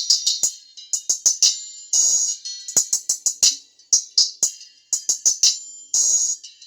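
Electronic beat music: a drum-machine pattern of rapid hi-hat-like ticks and rolls, repeating about once a second. It sounds thin and bright, with almost no bass.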